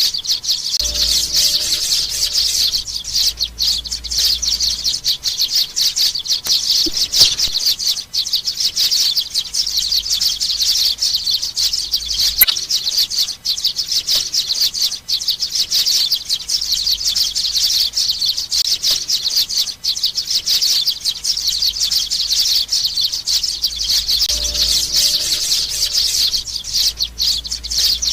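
Young sparrows chirping, a dense, continuous stream of rapid high-pitched begging calls used as a lure call.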